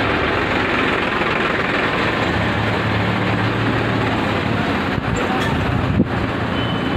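Steady vehicle and engine noise, with a low engine hum swelling for a couple of seconds mid-way and a sharp click about six seconds in.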